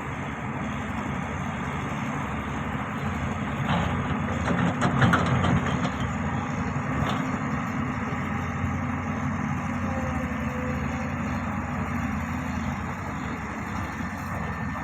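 Diesel engine of a heavy construction machine running steadily, with a few short knocks about four to five seconds in and one more a couple of seconds later.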